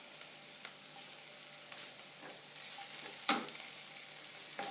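Sliced onions, green chillies and curry leaves sizzling softly in ghee in a pan, with a wooden spatula stirring and scraping. A few light clicks, and one sharper knock a little over three seconds in.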